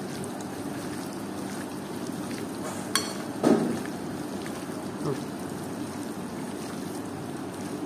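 A hand squishing and mixing chicken pieces in a wet spice marinade in a steel bowl, over steady background noise. There are a few short knocks against the bowl around the middle.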